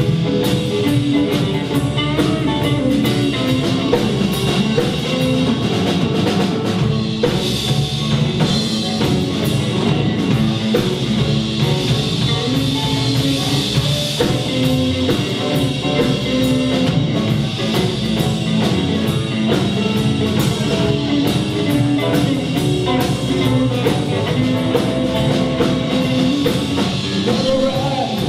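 Blues band playing live, drum kit to the fore with other instruments.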